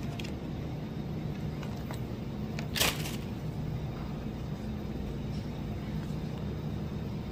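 Metal shopping cart rolling over a hard store floor: a steady low rumble, with one sharp knock about three seconds in.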